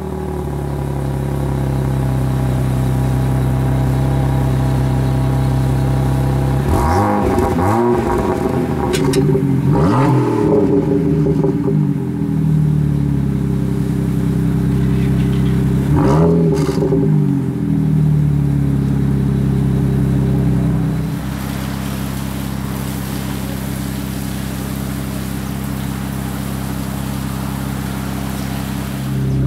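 BMW 1M's 3.0-litre twin-turbo straight-six idling through an Akrapovic exhaust, blipped several times in short quick revs partway through. About two-thirds of the way in it settles to a noticeably quieter idle.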